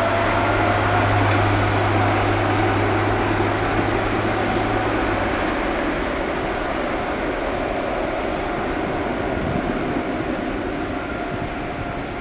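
Boeing 777-300ER's twin GE90 turbofans running steadily as the airliner taxis onto the runway for takeoff, a steady jet noise with a high whine that rises slightly early on.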